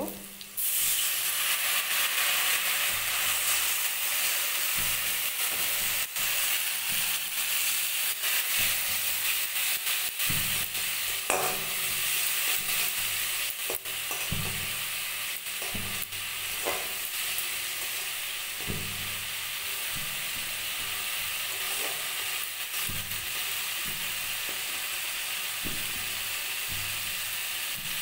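Onion, tomato and spice masala sizzling hard in hot oil in a metal kadai, the sizzle bursting up about half a second in as a splash of water hits the pan and then easing slowly. A spatula scrapes and knocks against the pan now and then as it is stirred.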